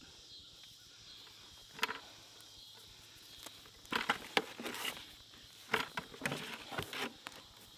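Coil of weighted pond airline hose being gathered up and handled beside a plastic bucket: a few short rustles and knocks, one about two seconds in and a cluster in the second half. Behind it a steady chirring of insects.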